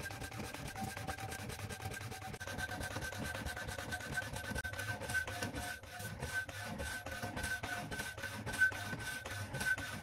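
Homemade wooden power hacksaw, driven by a reused washing machine motor, cutting with fast, even back-and-forth rasping strokes over a steady high tone.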